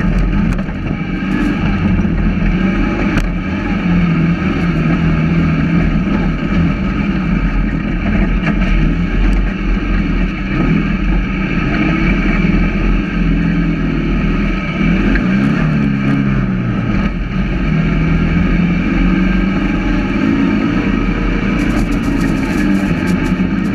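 Dune buggy engine running hard across sand, its pitch rising and falling as the throttle changes, over a steady low rumble of wind and tyres.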